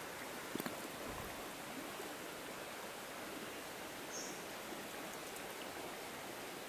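Faint, steady trickle of a shallow stream, with a couple of soft clicks about half a second in as the plastic bottle trap is set in the water.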